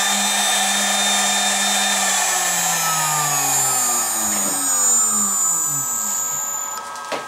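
1.5 kW air-cooled GDZ-80 spindle on a frequency inverter spinning down to a stop after an M5 command: its whine falls steadily in pitch and fades out near the end. A sharp click follows just before the end.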